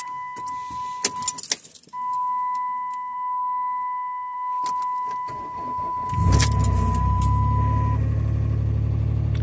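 Keys jangling and clicking at the ignition of a 2009 Dodge Grand Caravan SE over a steady high electronic tone. Its V6 cranks briefly and catches about six seconds in on a cold start at 7 °F, then settles into a steady idle. The tone stops about two seconds after the engine catches.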